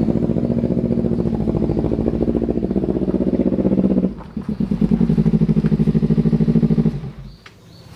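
Sport motorcycle engine running as the bike rides up. The engine note dips briefly about four seconds in, then picks up again. It falls away near the end as the bike stops.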